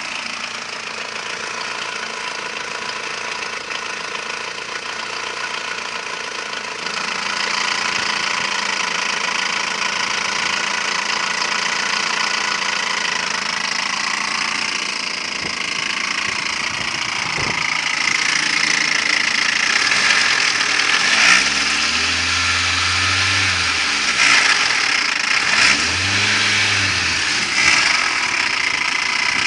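ZMZ-406 four-cylinder petrol engine running fully warmed up, with the knock that starts once it is hot. It is revved briefly twice in the last third.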